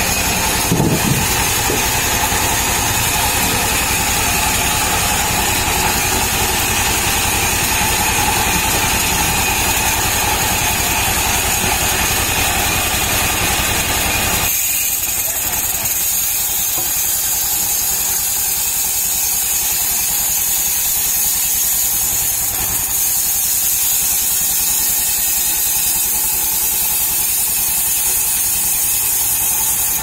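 Sawmill's vertical band saw running steadily, sawing lengthwise through a palm tree trunk. About halfway through, the lower part of the running sound drops away abruptly and the higher part carries on.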